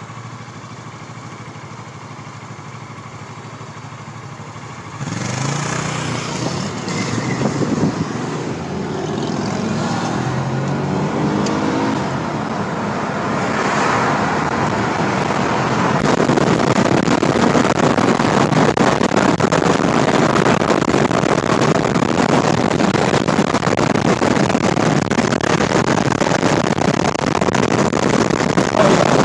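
Car engine idling, then accelerating hard from a standstill about five seconds in, heard from inside the cabin, its pitch climbing in repeated sweeps as it revs up through the gears. From about a quarter of the way in it gives way to loud, steady wind and road noise at speed.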